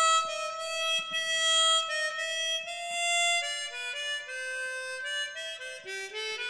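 Harmonica playing a melody of held single notes that change pitch every half second or so.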